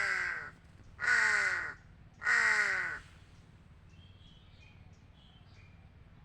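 A black crow cawing three times, about a second apart, each caw harsh and falling in pitch.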